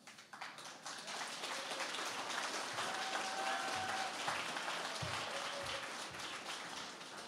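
Audience applauding, swelling in the first second and tapering off near the end.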